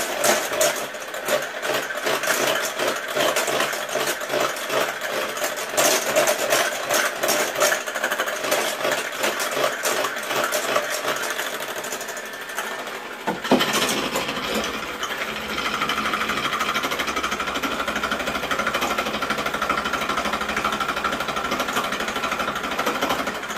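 Electric hand mixer running, its whisks beating eggs and sugar in a pot with a fast, rattling whir. About halfway through there is a sharp knock, and after it the mixer runs on more evenly.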